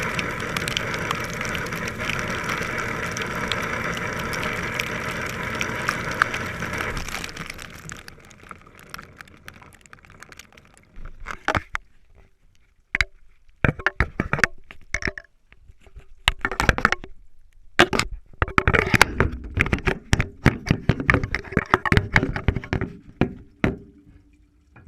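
Dishwasher running, a steady rush of spraying water over a motor hum, which dies away about seven seconds in. After a short lull come irregular sharp clicks, knocks and clatters in clusters.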